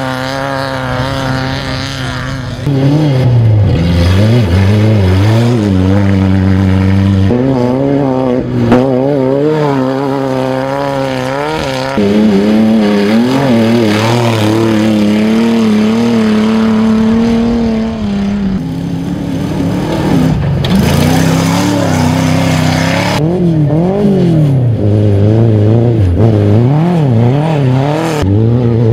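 Engines of off-road buggies and a race pickup revving and accelerating over a dirt course, pitch repeatedly climbing and dropping as they speed past. The sound changes abruptly several times between shots.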